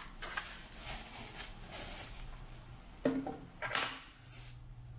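Plastic bubble wrap rustling and crinkling as it is pulled off a small radio, with two louder crackles a little after three seconds in, then quieter near the end.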